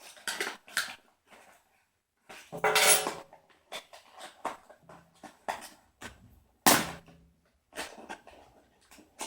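Cardboard and plastic packaging being handled and opened: scattered clicks, taps and rustles. A louder scraping rasp comes about three seconds in, and a sharp knock just before seven seconds.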